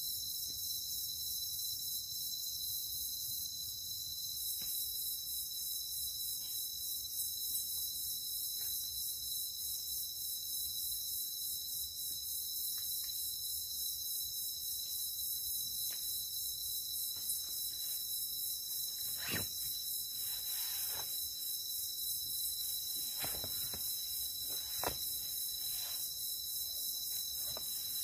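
Steady insect chorus, crickets or similar, holding several high-pitched tones at once, with a few faint knocks in the second half.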